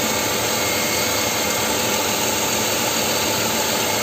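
2000 Dodge Durango engine idling steadily, run to check the newly fitted oil pressure switch for leaks.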